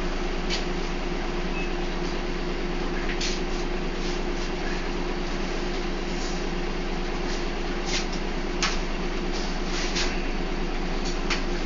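A bus heard from on board while running at a steady speed: an even engine and road drone, with short sharp rattles and clicks from the bodywork every second or so.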